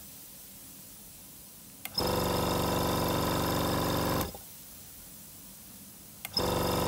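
Iwata airbrush compressor's pump motor switching on and off: it cuts out at the start, clicks back on about two seconds in and hums steadily, cuts out again past four seconds, and clicks on once more near the end. This is the automatic cut-in and cut-out that holds its output pressure steady.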